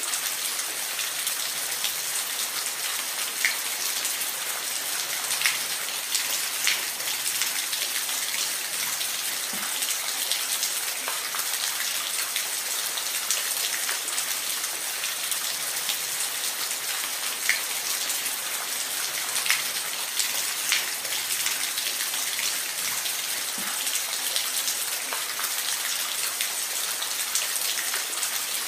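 Steady rain falling in a forest, an even hiss with scattered sharper drop taps on nearby surfaces.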